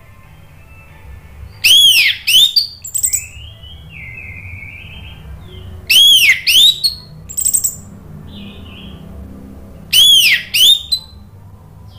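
Orange-headed thrush (anis merah) singing in three loud phrases about four seconds apart. Each phrase is a pair of arched whistles that rise and fall, followed by a few quick short notes, with quieter scratchy notes in between.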